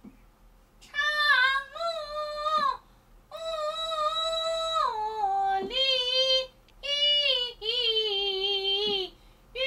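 A woman singing a Peking opera passage unaccompanied in a high voice. She holds long, wavering notes in several phrases broken by short pauses, with the pitch stepping down partway through.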